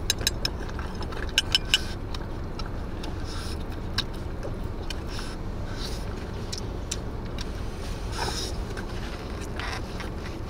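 A small dog eating its meal from a bowl, with sharp clicks and scrapes of a metal spoon against the bowl in the first two seconds, then scattered ticks and licks from the dog at the bowl, over a steady low rumble inside a car.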